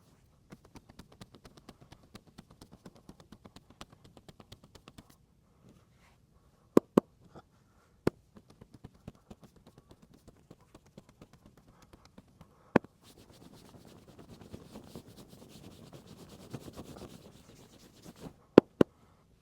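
Massage by hand: a run of quick light taps on the body, about six or seven a second, then several sharp, loud cracks, two of them close together in pairs, with a stretch of hands rubbing on skin in between.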